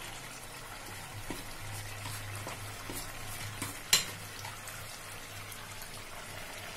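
Thick chicken curry bubbling and sizzling gently in a frying pan on a gas stove, over a steady low hum. One sharp clack about four seconds in stands out as the loudest sound, with a few faint ticks around it.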